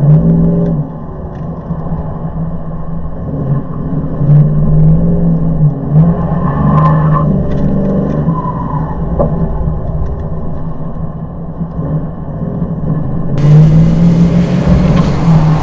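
1999 Dodge Dakota R/T's 5.9-litre V8 driven hard through an autocross course, its engine note rising and falling over and over as the truck accelerates and slows between corners. The sound turns brighter about two seconds before the end.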